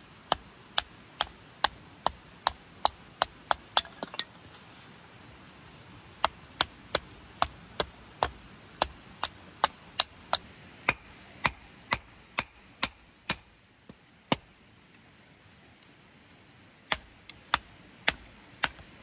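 Hatchet splitting kindling on a rock: runs of sharp wooden chops at about two to three a second, with two short pauses between runs.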